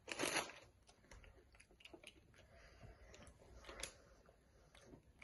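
Faint crunching of kettle-cooked potato chips being bitten and chewed, the loudest crunch right at the start, followed by scattered small crackles and light crinkles from a foil chip bag.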